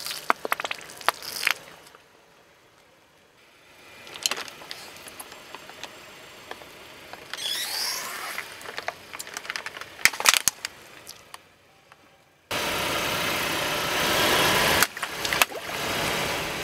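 A car tyre rolling over and crushing things on asphalt. Plastic paint tubes crack and squirt at the start, and water balloons squeak and pop a few seconds later. From about twelve seconds in comes a loud steady rush of water spilling and splashing across the pavement.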